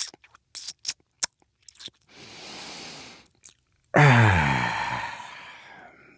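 Peter Griffin's 'dad noises': a string of wet mouth clicks and lip smacks, a breathy exhale, then about four seconds in a long, loud groaning sigh that falls in pitch and trails off.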